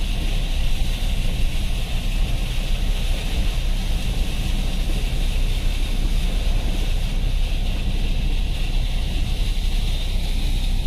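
Car driving slowly through shallow floodwater, heard from inside the cabin: a steady low rumble of engine and tyres under a continuous swish of water.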